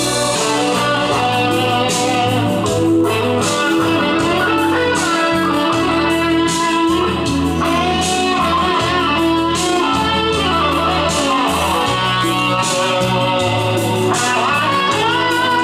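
Guitar-led music with a steady bass line playing from a vinyl LP on a Philips AF-294 turntable, heard through the hi-fi system's loudspeakers.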